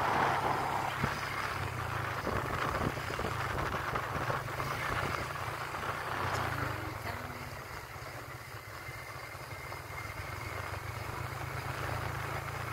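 Yamaha motorcycle engine running steadily while riding on the road, easing off a little about eight seconds in.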